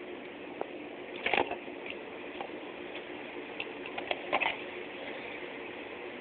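Light clicks and knocks of a plastic alarm clock radio and its power cord being handled, in short clusters about a second in and around four seconds in, over a steady low hiss.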